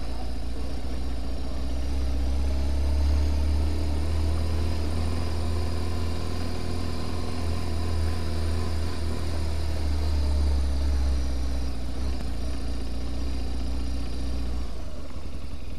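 Motorcycle engine running at low speed as the bike climbs a steep street. It is a steady low drone, a little louder through the middle.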